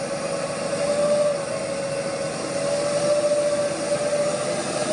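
Loaded Mitsubishi Fuso truck's diesel engine labouring in low gear up a muddy slope, a steady drone with a high whine held over it.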